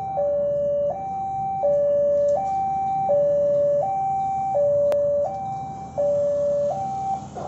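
Railway level-crossing warning alarm sounding a two-tone high-low signal, each tone held about 0.7 s, warning that the barriers are closing for an approaching train. It stops just before the end, and a sharp click comes about five seconds in.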